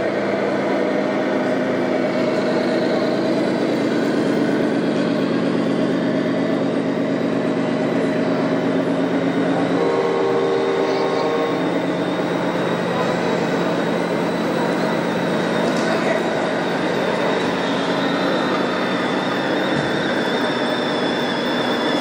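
Radio-controlled model trucks and a model tractor running, their engine sound modules giving a steady engine-like drone over the chatter of a crowded exhibition hall. A short steady horn-like tone sounds about ten seconds in.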